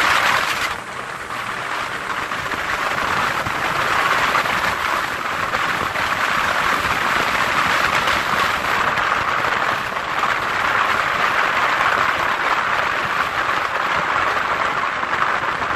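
A car driving along a road, heard as a steady rushing of tyre and wind noise that dips briefly about a second in.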